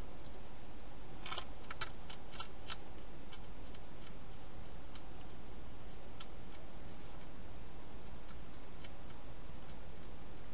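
A wild hedgehog crunching dry food, heard as a quick cluster of sharp crunches and clicks about a second in, then scattered fainter ones, over a steady hiss.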